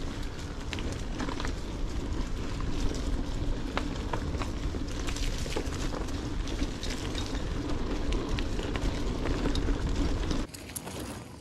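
Alpinestars AlMega DX rigid mountain bike ridden along a dirt trail covered in leaves: tyres rolling over the ground with a steady rumble and many small rattles and knocks from the bike over the bumps. It drops much quieter about a second before the end.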